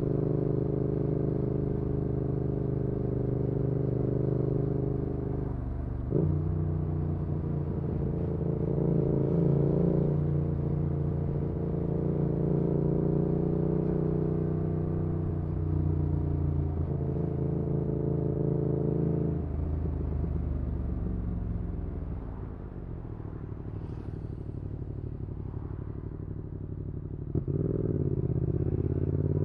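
2019 Yamaha XSR700's 689 cc parallel-twin engine running through an aftermarket IXRACE MKII exhaust while riding, at steady cruising revs with a change in engine note about six seconds in. Near two-thirds of the way through it drops off and quietens as the throttle closes, then opens up again near the end.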